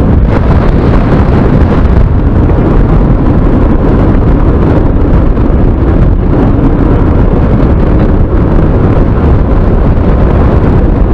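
Heavy wind buffeting on the rider's microphone while riding a Yamaha NMAX 155 scooter at speed, with the engine and road noise underneath. The rumble is loud and steady throughout.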